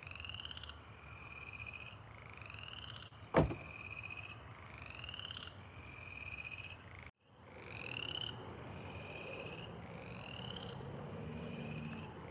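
Frogs calling, a repeated call that rises in pitch and then holds, about once a second. A single sharp knock about three and a half seconds in.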